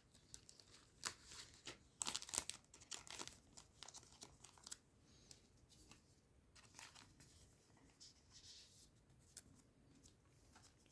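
Trading cards and foil booster-pack wrappers being handled: faint, scattered crinkles and tearing rustles, busiest about one to three seconds in and then sparser.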